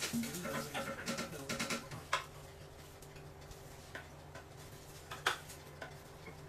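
A few sharp, spread-out clicks of chopsticks tapping against a rectangular egg pan as an egg roll is turned, over a faint steady low hum.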